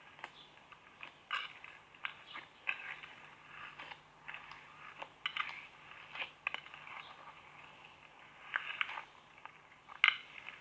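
Slime being worked by hand: irregular sticky clicks and small crackling pops, about two a second, with a louder pop near the end.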